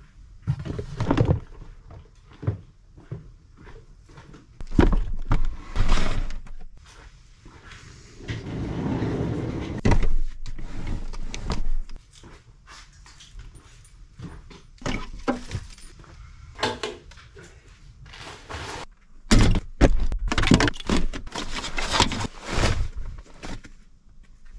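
A string of separate thuds, knocks and rustles from gear being handled and loaded into a pickup truck, with door-like thunks among them.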